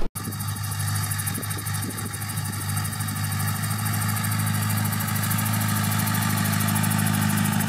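Engine of an old canvas-topped military cargo truck running steadily at an even pace as the truck drives slowly across snow, approaching. The sound begins just after a momentary gap at the very start.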